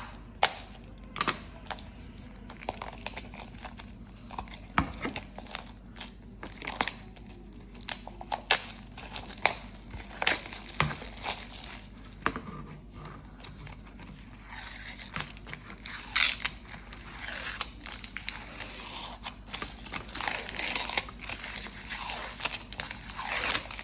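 Handling of plastic packaging: scattered taps and clicks at first, then, from a little past halfway, continuous crinkling and tearing as clear plastic wrap is pulled open and the protective film is peeled off a plastic paint palette.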